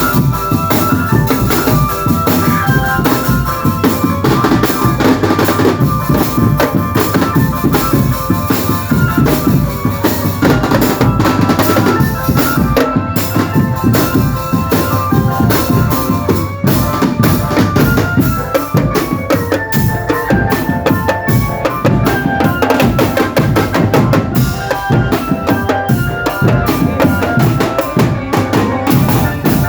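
School marching drum band playing: rapid snare and bass drum strokes under a melody of pitched notes.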